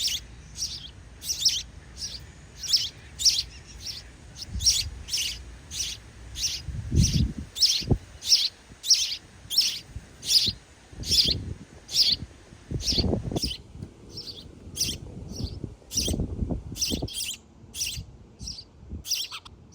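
Sparrow chirping, short high chirps repeated about twice a second without a break. A few low thumps and rustles come in around the middle.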